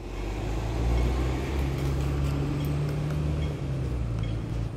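Low, steady drone of a motor vehicle's engine close by on the road, growing louder about a second in and falling away near the end as it passes.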